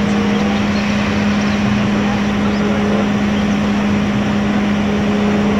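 Fire engine running steadily while its pump feeds the aerial ladder's water stream: a constant low drone over a dense, even rushing noise.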